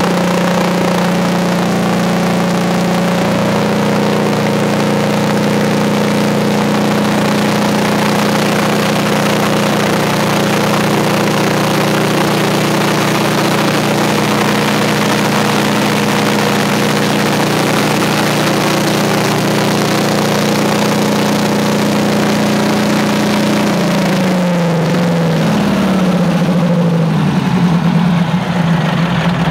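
Detroit Diesel 8V-92 TA two-stroke V8 diesel running a 313 kVA generator set: a steady drone at a fixed pitch that steps up slightly a few seconds in. Near the end the pitch falls in steps as the engine slows.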